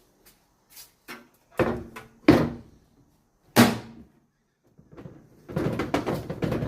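Heavy knocks and thuds of salvaged microwave parts being handled and set down on a hard surface. Three sharp knocks come in the first few seconds, then a longer stretch of clattering and rattling near the end.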